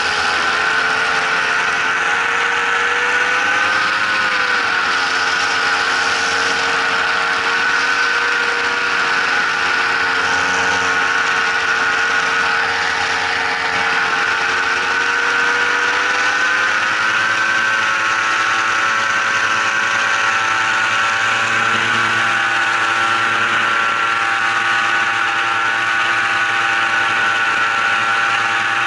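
An engine running steadily for the whole stretch, its pitch rising briefly and falling back about four seconds in, then climbing a little from about sixteen seconds on.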